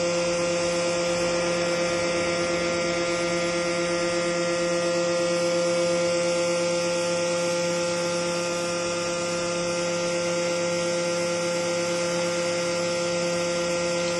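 CNC engraving machine running: a steady whine with several held tones over a hiss, unchanging throughout.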